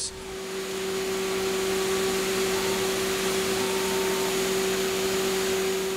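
Haas VM3 vertical machining center cutting a turbofan blade in simultaneous 5-axis with a small end mill: a steady hiss with a steady spindle hum under it, swelling in over the first second.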